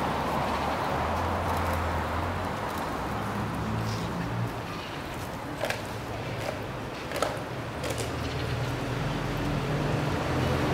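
Outdoor street ambience: a low steady hum like traffic or an idling engine, with two short sharp knocks about six and seven seconds in.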